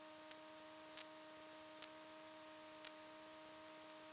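Near silence on the aircraft's radio and intercom audio feed: a faint steady electrical tone over low hiss, with four faint ticks about a second apart.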